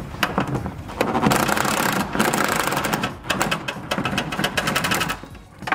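Cordless impact wrench hammering on an exhaust mounting nut under a BMW E46, a fast, steady rattle of impacts. It starts about a second in, runs for about four seconds and stops as the nut breaks loose.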